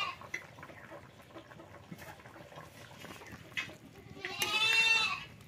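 A goat bleats once, a long call starting about four seconds in.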